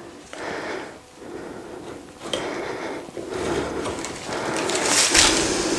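Strips of self-adhesive sealing tape being handled and pressed onto the metal edge of a loft-ladder frame, their paper backing rustling. Several short rustling scrapes, the loudest near the end.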